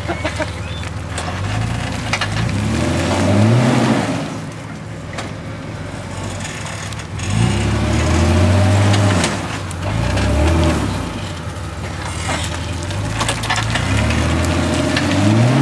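Jeep Wrangler engine revving in four surges, each a couple of seconds long, the pitch climbing and falling back each time, as the Jeep crawls up a steep dirt bank.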